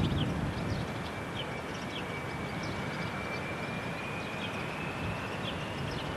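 Jet airliner taxiing at a distance: a steady engine rush with a thin whine that rises slowly in pitch.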